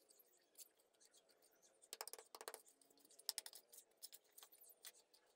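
A small hand tool scraping through loose dry soil and gravel, in two short clusters of scratchy strokes about two and three seconds in, with a few stray ticks around them.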